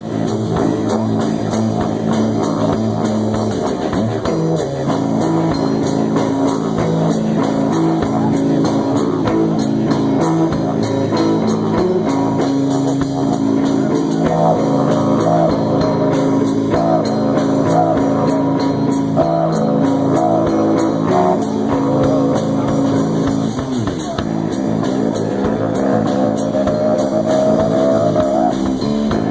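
Rock music with guitar and drum kit: a steady beat under held chords, with a wavering lead melody line coming in about halfway through.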